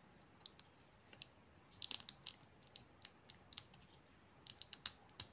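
Faint, scattered small clicks and taps of a SanDisk USB pen drive's plastic casing being handled and pressed shut between the fingers, some single and some in quick little clusters.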